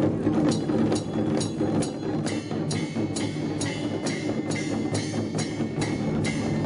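Children's percussion ensemble of drums and small gongs playing lion-dance gong-and-drum music: an even beat of sharp strokes about two a second, with a ringing metal tone joining the strokes about two seconds in.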